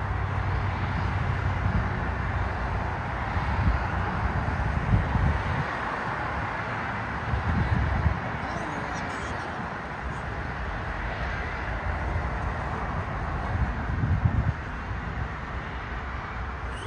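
Airliner jet engines running at taxi power, a steady hiss and rumble, with wind buffeting the microphone in several gusts.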